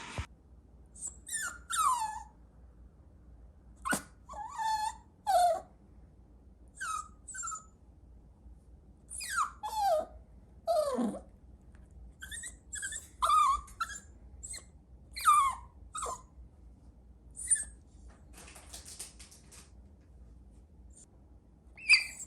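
Chihuahua–dachshund mix puppy making a series of short, high yips and whines, each one falling in pitch, with gaps between them; one longer call about halfway through slides down much lower.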